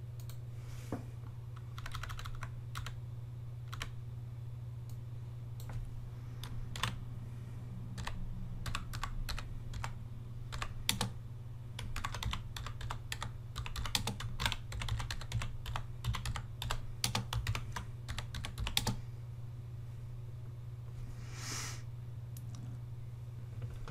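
Typing on a computer keyboard: scattered key clicks at first, then a fast dense run of keystrokes through the middle, stopping a few seconds before the end. A short hiss comes near the end, over a steady low hum.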